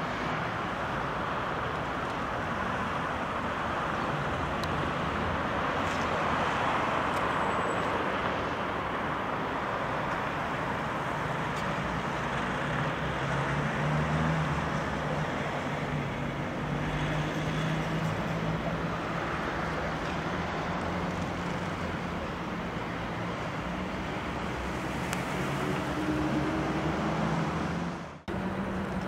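Steady road traffic noise, with a vehicle engine's low hum growing louder through the middle. The sound cuts out briefly near the end.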